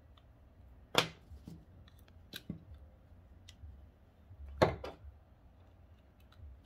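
Sharp plastic and metal clicks and taps as a small key fob shell and a tiny screwdriver are handled, with a loud click about a second in, another past two seconds, and a quick pair near the five-second mark.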